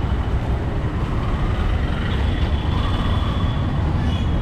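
Steady low rumble of street traffic, with a short horn toot near the end.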